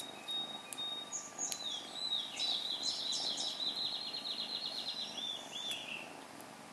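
A songbird singing: a fast, high trill of repeated chirps starting about a second and a half in and running for several seconds before fading, over faint background noise.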